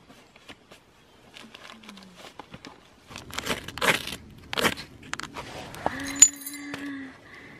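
A knife blade is scraped hard three times along a fire-starter rod, striking sparks onto a tissue to light a campfire. It is followed by a short steady hum with a sharp click.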